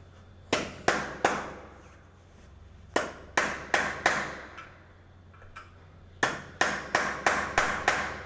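Hammer blows in three quick runs, three, then four, then six strikes, each ringing briefly, as a fitting is knocked into place on a glass door.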